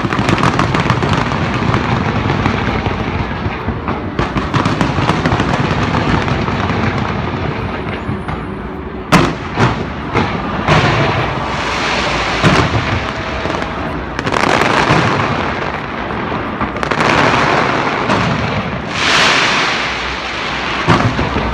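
Large aerial fireworks display: a dense, unbroken barrage of crackling and booming bursts, then from about nine seconds in separate loud bangs, each followed by a long wash of crackle.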